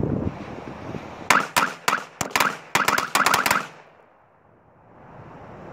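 A small pack of Black Cat firecrackers going off in a rapid string of sharp pops lasting about two seconds, starting just over a second in.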